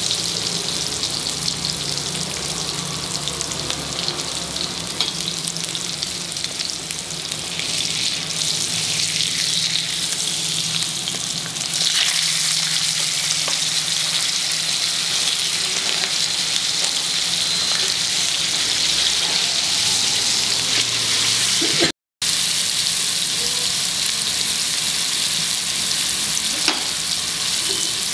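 Marinated modso fish pieces shallow-frying in hot coconut oil in a pan, a steady sizzle that grows louder about halfway through. The sound breaks off for a moment near the end.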